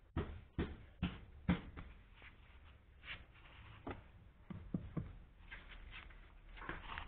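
Irregular soft knocks and rustling from hands handling the floor carpet inside a VAZ 2106 cabin. The taps come closest together and are loudest in the first two seconds, then thin out.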